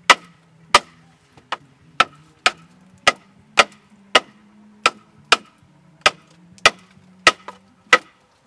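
Sharp wooden knocks, evenly spaced at about one every half to two-thirds of a second, as a fire-charred bamboo cooking tube is struck to split it open.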